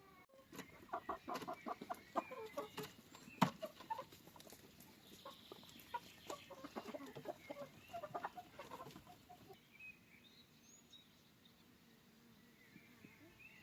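Chickens clucking in short, repeated calls, with one sharp knock about three and a half seconds in; the calls die down about nine seconds in.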